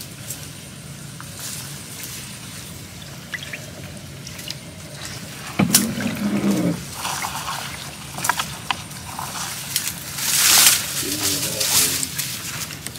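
Water trickling and splashing as a net fish trap is hauled by hand out of a canal, with scattered small knocks and one louder, short splash about ten seconds in.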